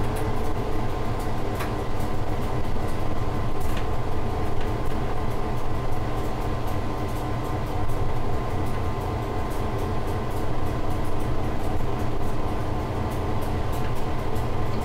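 Diesel freight locomotive running steadily at speed, heard from inside the cab: an even engine drone with several steady tones over the rumble of wheels on rail, and scattered light clicks.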